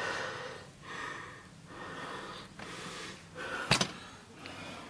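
A person breathing hard close to the microphone, a run of short breaths less than a second apart, with one sharp click about three and a half seconds in.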